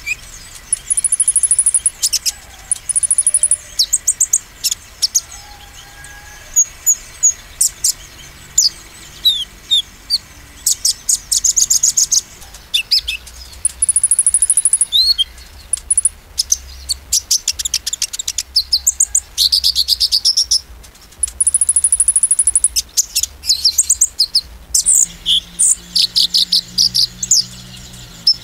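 Caged male kolibri ninja (konin) sunbird singing in fast, high-pitched trills and sharp chips, in repeated bursts of about a second with short gaps between them. This is the rapid 'nembak' song that sets other males singing back.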